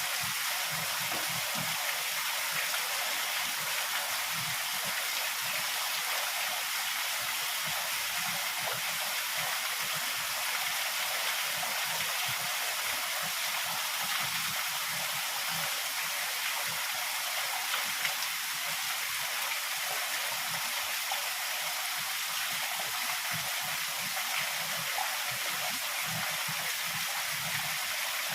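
Heavy rain pouring steadily, an even hiss with no thunder clap.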